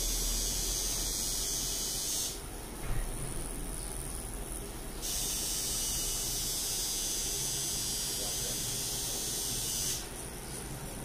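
Pen-style rotary tattoo machine running with a steady buzzing hiss as it works ink into skin, dropping in level twice for a few seconds.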